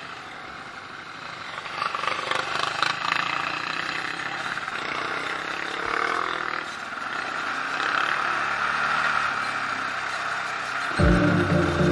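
ATV engine running as it rides along, mixed with wind rushing over a helmet-mounted camera, which gets louder about two seconds in. Music comes in suddenly about a second before the end.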